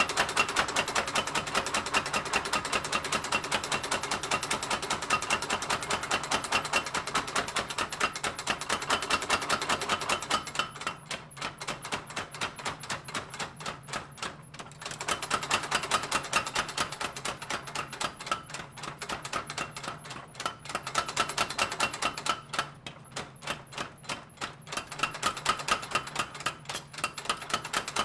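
Mechanical power hammer rapidly pounding a red-hot steel knife blank, several even blows a second. The blows come in louder and softer runs as the steel is worked under the hammer.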